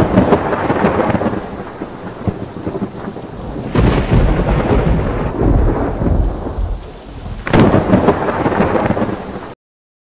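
Thunderstorm: loud thunder with rain. A sharp crack comes right at the start, fresh rolls of thunder swell about four seconds in and again about seven and a half seconds in, and the sound cuts off suddenly near the end.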